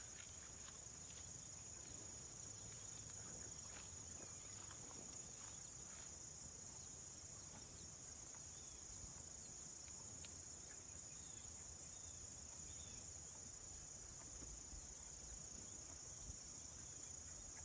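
Faint, steady high-pitched chirring of insects in a grassy field.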